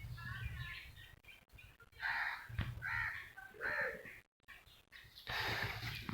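A crow cawing three times, harsh calls about half a second apart, starting about two seconds in.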